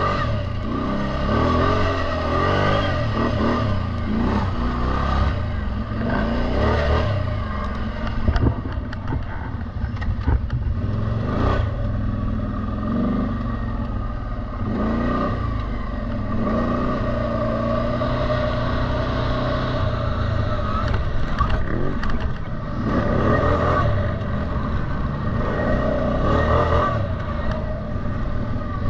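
CFMoto Terralander 800 ATV's V-twin engine being ridden hard over sand, its pitch rising and falling again and again as the throttle is opened and closed, with some rattling from the machine.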